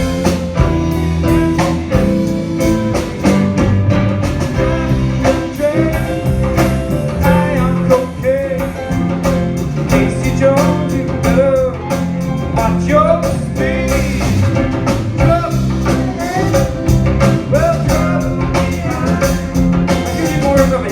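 A live band playing a song: drum kit and guitar with a singing voice, loud and continuous.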